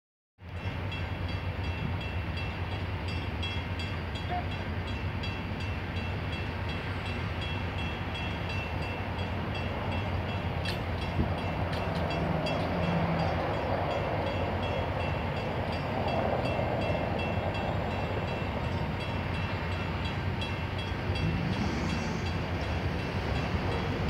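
Steady low hum of idling vehicle engines in stopped traffic, with faint background noise.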